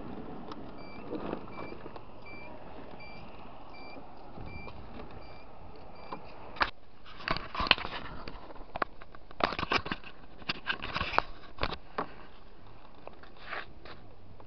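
A scooter's turn-signal buzzer beeping about twice a second for the first few seconds, over the steady running noise of the scooter. From about six seconds in comes a string of sharp knocks and rattles as the scooter rolls over paving bricks.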